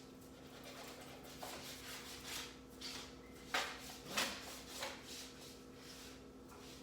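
A series of short rubbing swishes from a laptop being wiped clean by hand, the two strongest strokes about halfway through. A faint steady hum runs underneath.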